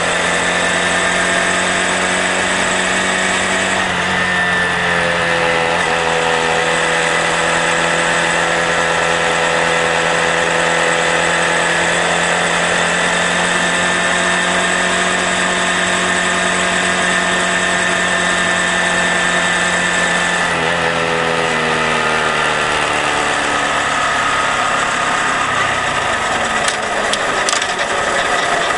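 Honda Grom's small single-cylinder engine running steadily on the road. Its pitch shifts about four seconds in and again about twenty seconds in, then sinks slowly over the last few seconds as the bike slows.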